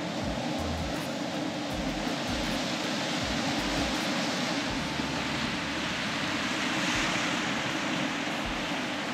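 Pacific Ocean surf breaking and washing over a rocky shore, a steady rush of waves that swells louder about seven seconds in, with intermittent low wind rumble on the microphone.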